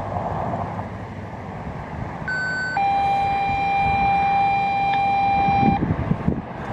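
Two-tone sequential radio paging tones: a short high tone, then a steady lower tone held about three seconds, the activation tones that set off the outdoor warning siren. Wind and traffic rumble underneath.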